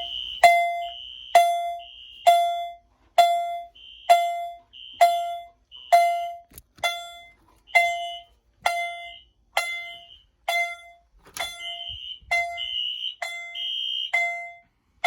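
Fire alarm chime striking about twice a second, each strike ringing and dying away, with a fainter high tone coming and going between strikes. Its frequency and volume potentiometers have been turned so the chime sounds lower in pitch and a bit louder than its setting.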